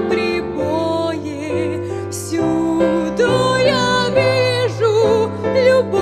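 A woman singing a song with vibrato into a microphone, accompanied by a digital piano.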